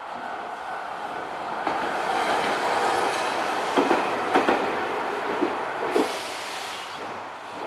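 A Hankai Tramway tram passing over a level crossing: its running noise builds, then its wheels clack several times over the rail joints and the crossing about four to six seconds in, and the noise fades as it moves away.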